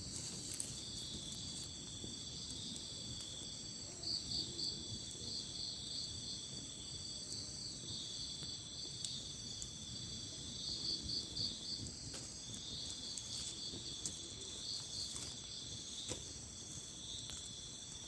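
Night insect chorus: several insects keep up steady high-pitched trills, and over them another gives short runs of three to five quick pulses every few seconds. Faint scattered clicks sound underneath.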